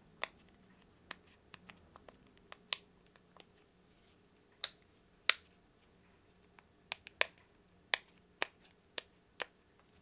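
Bubbles of a small round silicone push-pop fidget toy being pressed in one by one, giving a string of short, irregular pops, a few of them sharper than the rest.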